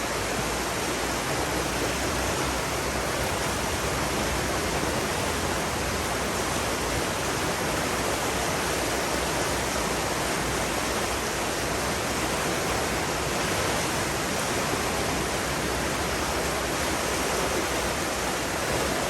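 Steady, even rush of running water, with no change in level.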